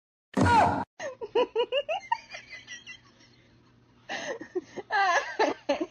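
A loud sudden burst half a second in, then a person laughing in quick bursts, twice, with a short lull between.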